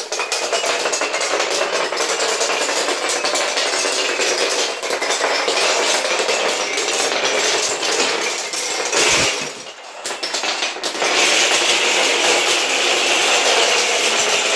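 Wooden Kapla planks toppling in a long domino chain, a continuous rapid clatter of wood on wood and on the floor. It eases briefly about nine seconds in, then comes back loud as a tall plank tower collapses.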